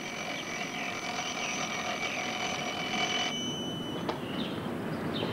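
Twin-bell mechanical alarm clock ringing steadily, cut off abruptly about three seconds in as a hand switches it off. Birds chirp faintly before and after.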